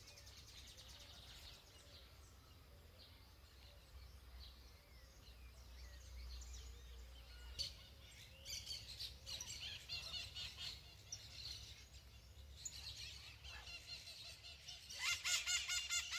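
Outdoor birdsong: several birds chirping and calling over one another, sparse at first and busier from about halfway, loudest near the end.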